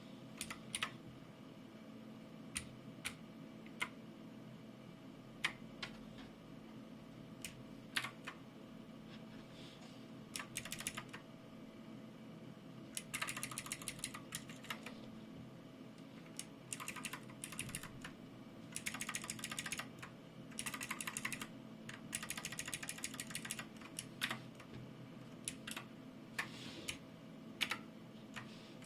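Keycool 84 mechanical keyboard with clicky Gateron Blue switches being typed on: scattered single keystrokes for roughly the first ten seconds, then bursts of fast typing.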